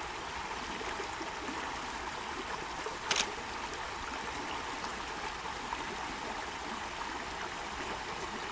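Steady flowing water of a small stream, with a brief sharp double click about three seconds in.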